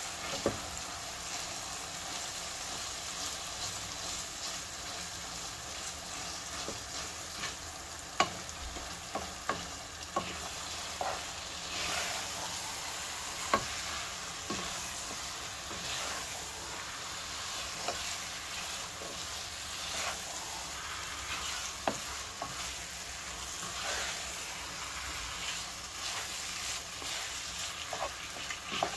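Chicken mince frying in tomato-onion masala in a non-stick pot, sizzling steadily while a spatula stirs and breaks it up. Sharp knocks and scrapes of the spatula against the pot come every few seconds.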